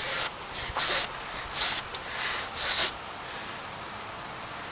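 A person breathing in loud, breathy huffs close to the microphone, about five quick bursts of air in the first three seconds, as if puffing herself up like a balloon being refilled; then only a steady low hiss.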